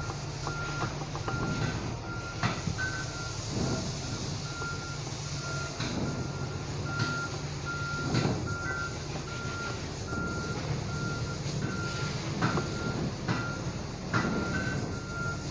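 A vehicle's reversing alarm beeps at a steady, even pace over a low engine hum. A few light knocks sound from work on a compressor's cylinder block.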